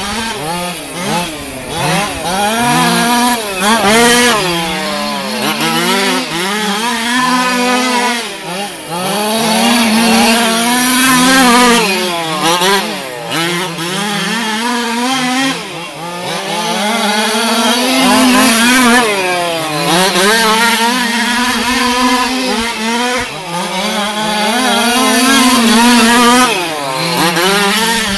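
Small two-stroke engines of two or more large-scale gas RC cars running laps together, each engine's pitch rising and falling over and over as the throttle opens and closes.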